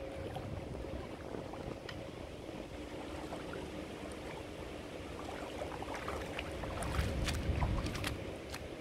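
Legs wading through shallow river water, sloshing and small splashes that come thicker and louder near the end, over a steady low rumble.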